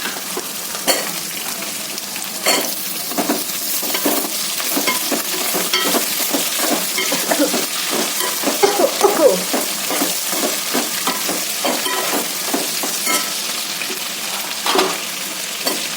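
Chopped potatoes, onions and spices sizzling in hot oil in a pan, stirred with a spoon that scrapes and taps the pan again and again, busiest in the middle of the stretch.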